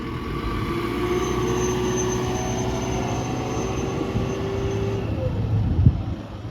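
JCB 3CX backhoe loader's 4.4-litre diesel engine running steadily, with a steady whine over it from about a second in until about five seconds in, and a single knock near the end.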